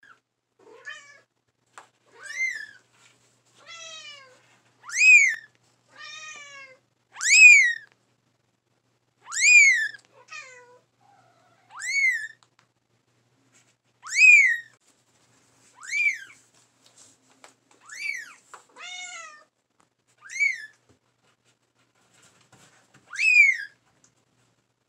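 Very young kitten crying with repeated high-pitched meows, each rising then falling, the louder ones about every two seconds with a few fainter, lower calls between: the isolation calls of a kitten separated from its mother.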